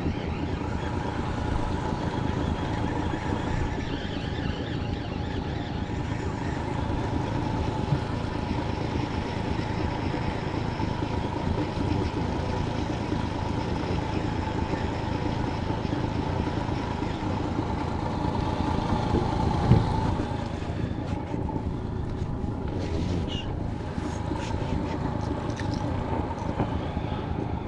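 Honda 30 hp four-stroke outboard motor running steadily at low trolling speed, with a few light clicks near the end.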